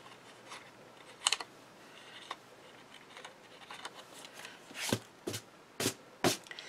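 Die-cut cardstock and paper being handled: scattered light rustles and short crisp clicks, a few louder ones in the last two seconds.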